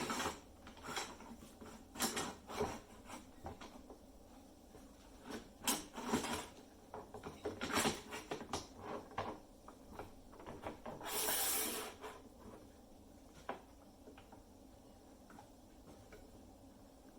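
Knocks, clicks and rattles of the metal parts of a small benchtop wood lathe being handled and adjusted, with one scraping slide of about a second, about eleven seconds in. The motor is not running.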